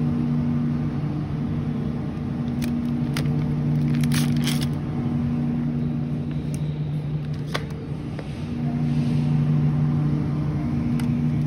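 Steady low electrical hum of refrigerated produce display cases, with a few light clicks and crackles scattered through it.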